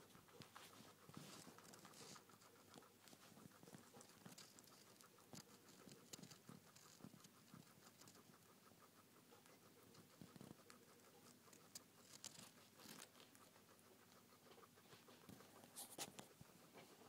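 Guinea pig chewing leafy greens: faint, rapid crunching, with a few louder clicks and rustles of the paper the food lies on.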